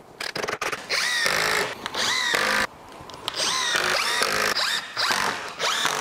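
Cordless impact driver driving screws through two stacked sheets of plywood. There are three runs: the first two each last about a second and a half, and a shorter one comes near the end. Each run rises in pitch as the motor spins up.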